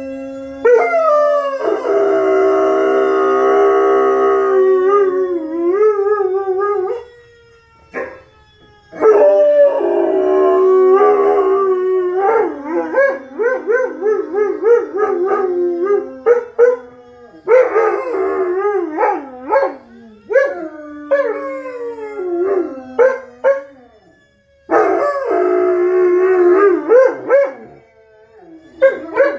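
German Shepherd howling in long calls that glide and waver up and down, breaking into quicker yelping notes, in several bouts with short pauses between. In the first few seconds a steady held tone runs under the howl.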